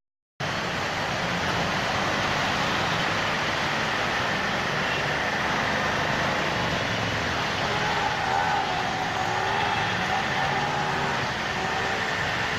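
Steady, dense noise of heavy monsoon rain and a vehicle moving through waterlogged streets, starting abruptly after a moment of silence. A faint wavering tone rises out of it about eight seconds in.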